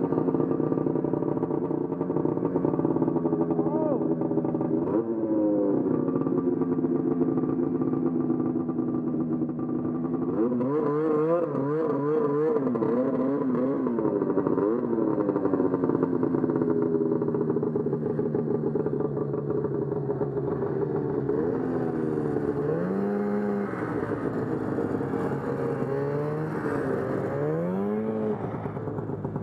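Vintage two-stroke snowmobile engine idling, with the throttle blipped up and down several times, in quick bursts in the middle and again near the end.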